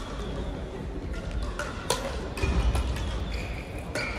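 Crossminton rally: sharp cracks of rackets striking the speeder at irregular intervals, strongest about two seconds in, with short squeaks of shoes on the court floor and a low hall rumble underneath.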